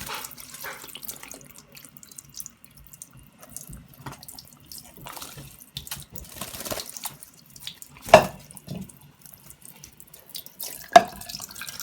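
Tap water running and splashing into a sink, with two short, loud, sharp sounds: one about eight seconds in and one near the end.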